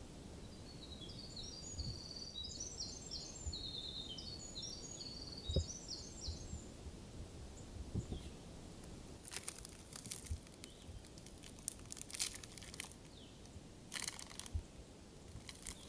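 A small songbird sings a long, rapid string of high twittering notes for several seconds. A light knock comes as a mug is set down on a log about eight seconds in, and then a chocolate bar's wrapper crinkles and crackles in several bursts as it is opened.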